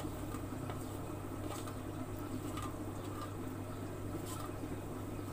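Steady low hum of background noise with a few faint soft taps and plops as diced boiled potatoes are tipped from one steel bowl into another.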